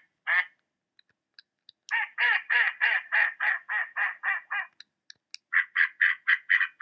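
Mallard quacking: a couple of raspy quacks, then a run of about ten that grow fainter, then a second, quicker run of quacks starting about two-thirds of the way in.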